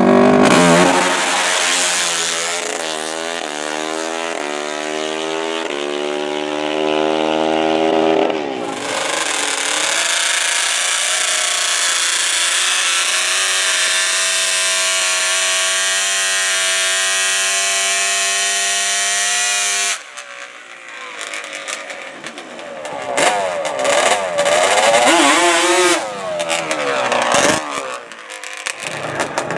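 Drag-racing ATV engine at full throttle, its pitch climbing in steps as it shifts up through the gears. About eight seconds in it changes abruptly to a steady, high-pitched wide-open run. After about twenty seconds it gives way to quieter engine sound that rises and falls.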